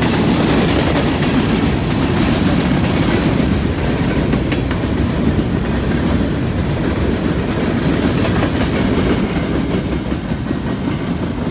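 Freight train's covered hopper cars rolling past: a steady rumble and clatter of steel wheels on the rails. It eases off a little near the end.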